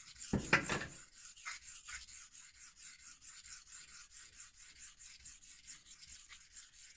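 Dovo straight razor being stroked back and forth on a sharpening whetstone in a fast, even run of short strokes: a scraping rasp while the bevel is being set. There is one louder thump about half a second in.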